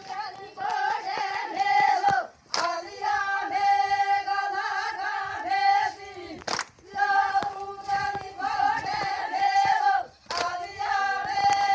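A woman singing a traditional Adivasi folk song, apparently unaccompanied, in long held phrases with short breaks between them.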